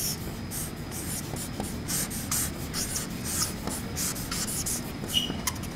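Marker pen scratching across a painted wall in quick, irregular strokes as a signature is written and circled, with one brief squeak near the end.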